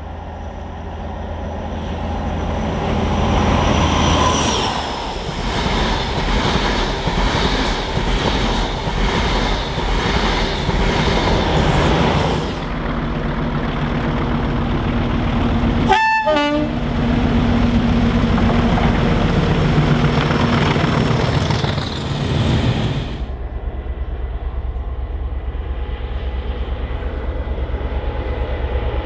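Locomotive-hauled trains passing at speed one after another, the sound changing abruptly between passes: a loud rush of engine and wheels with an even clatter over the rail joints. A brief horn toot sounds about halfway through.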